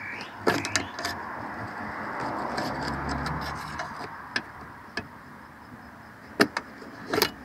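A plastic ruler prying and tapping at the edge of a car's shut fuel filler door, giving scattered sharp clicks and scrapes; the two loudest come near the end. The electric release holding the door shut is dead with a flat battery, so it is being worked open by hand, over a steady background hiss.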